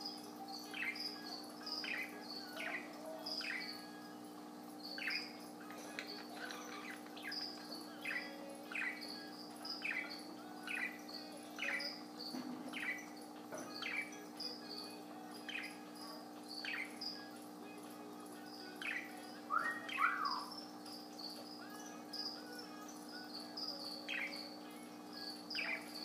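Budgerigar making short chirps, repeated a little more often than once a second, with two louder downward-sliding calls about twenty seconds in, over a steady low hum.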